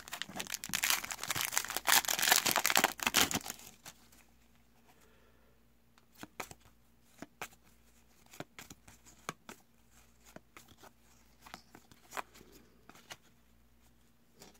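Trading-card pack wrapper being torn open and crinkled for the first three and a half seconds, then quieter, scattered flicks and taps as the cards are leafed through by hand.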